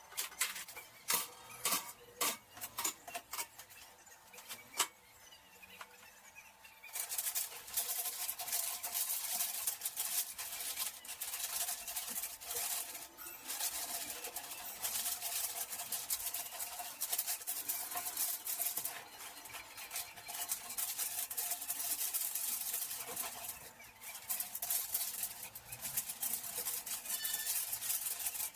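Dishes and utensils clinking and knocking during hand dishwashing, then a tap running steadily from about seven seconds in, with more clinks under the water.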